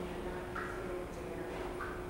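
Quiet room tone with a steady faint hum and a few faint, short high blips.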